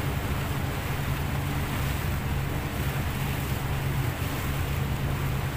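A speedboat's engine running steadily under way, a constant low hum, with wind on the microphone and water rushing past the hull.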